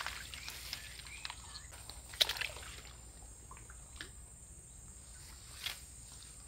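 Faint small splashes and ticks as a baited line from a bamboo fishing pole is cast back into a ditch, with one sharper splash about two seconds in.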